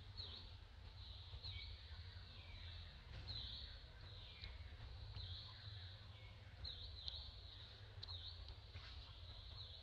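Faint forest ambience: birds repeatedly giving short calls that fall in pitch, roughly one a second, over a steady low rumble.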